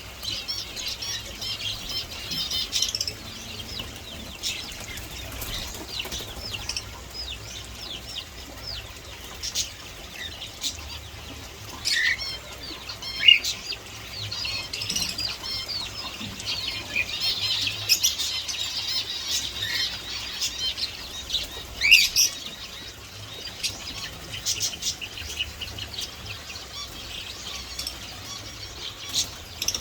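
Small birds chirping and chattering continuously, with a few louder sharp calls standing out here and there.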